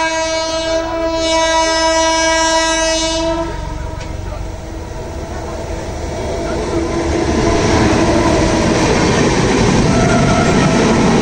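Jan Shatabdi Express locomotive horn sounding one long steady blast that stops about three and a half seconds in. The rumble and wheel clatter of the fast train passing then grow louder from about six seconds in.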